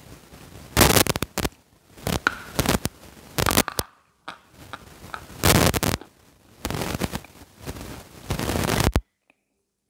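A person biting and chewing a hard lump of chalk close to a clip-on microphone: a run of loud crunches about once a second with gritty grinding between them. The sound cuts off abruptly about nine seconds in.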